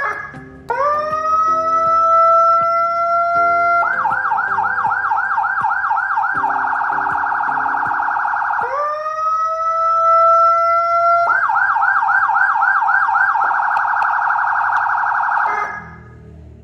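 Whelen Euro 15-watt motorcycle siren sounding through its tones, twice over. Each time, a wail rises and holds, then switches to a fast yelp of about five sweeps a second that speeds into a quicker warble. It cuts off near the end.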